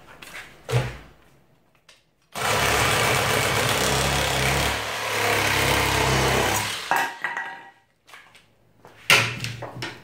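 Older Milwaukee 18-volt cordless Sawzall reciprocating saw, running on a lithium-ion battery through an adapter, cutting through a wooden board for about four seconds. A few knocks follow near the end.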